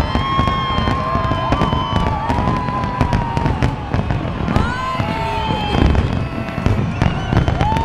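Fireworks finale: a dense, continuous barrage of bursts and crackles, with long high whistles sounding over it several times, each rising, holding and then falling.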